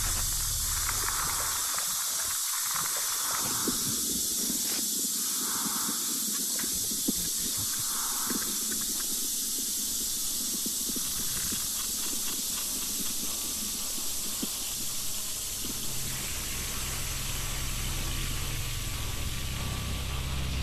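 Ambient electronic soundscape: a steady hiss with soft swelling whooshes every two or three seconds in the first half, and a low hum building up again near the end.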